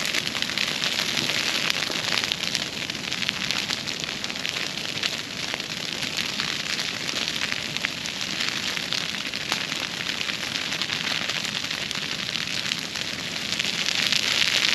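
A grass fire burning through tall dry broomsedge, a dense steady crackle of flames that grows louder near the end.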